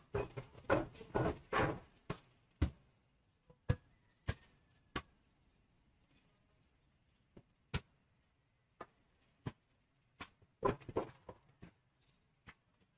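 Pry tool being worked along the edge of an iPad mini 2's cracked digitizer glass: a quick run of scraping strokes in the first two seconds, then scattered sharp clicks and taps, with another short flurry of scraping about ten and a half seconds in.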